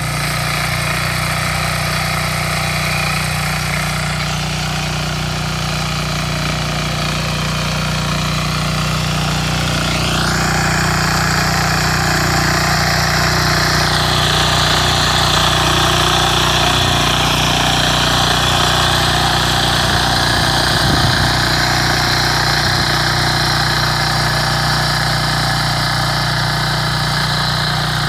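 Motor hoe (rotary tiller) engine running steadily while tilling hard soil. About ten seconds in the engine note rises, holds for a few seconds, then drops back.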